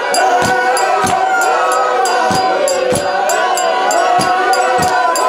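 A woman singing a lead line through a microphone, with a group of voices singing along and steady rhythmic handclaps.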